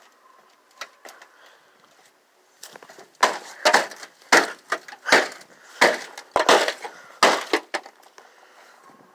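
An old rusty microwave being battered: a quick run of about eight loud bangs and crunches starting about three seconds in, with lighter knocks and rattles before them, as its casing resists breaking.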